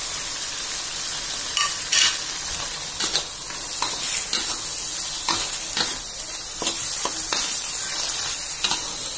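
Spice paste with chilies and tomato sizzling in hot oil in a wok, with a steady hiss. A metal spatula scrapes and knocks against the wok roughly twice a second as it is stirred.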